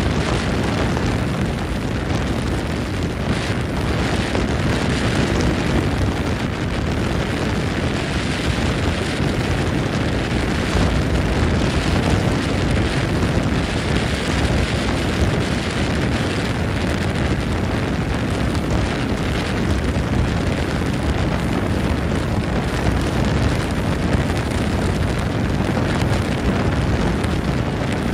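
Wind buffeting the microphone on a moving boat: a steady, loud rumbling rush with the boat's running and water noise beneath.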